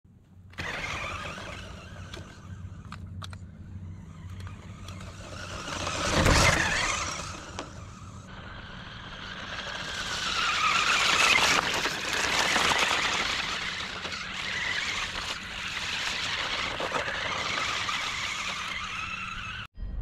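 Bwine 1:10 amphibious RC monster truck being driven, its electric motor whining and its tyres on loose ground. One loud swell comes about six seconds in, and the whine rises and falls with the throttle in the second half. The sound cuts off suddenly near the end.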